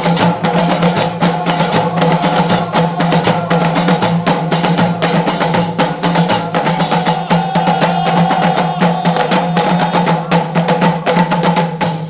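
Background music with a fast, steady percussion beat over sustained tones.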